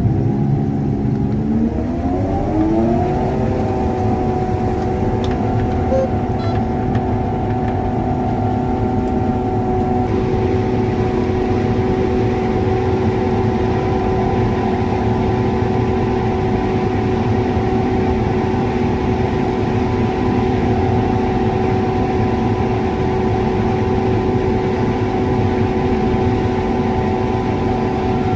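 John Deere S660 combine throttling up over the first three seconds, its pitch rising, then running steadily at full speed.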